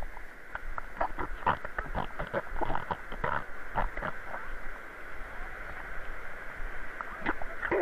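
Steady rush of river water over a weir, with a jumble of short irregular footsteps and knocks from people walking on stone paving.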